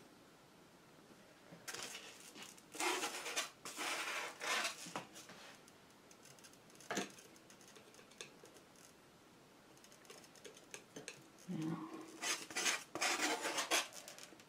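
Metal palette knife scraping and dabbing thick acrylic paint on a canvas, in groups of short, scratchy strokes: a run about two seconds in, a single stroke around seven seconds, and another run near the end.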